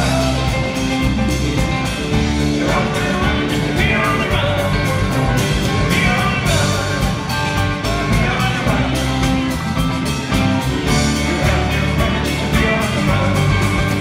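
Live rock band playing, with electric keyboards, electric guitar and a drum kit keeping a steady beat, heard from out in the audience.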